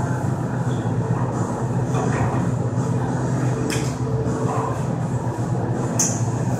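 Welding machine humming steadily while idle, with two short ticks, one about halfway through and one near the end.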